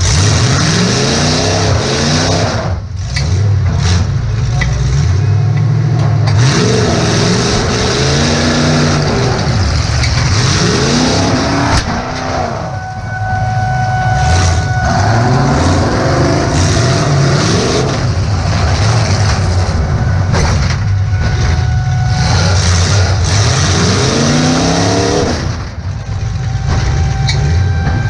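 Demolition derby car's engine, heard from inside the cabin, revving hard and easing off again and again, with a few sharp bangs from car-to-car hits.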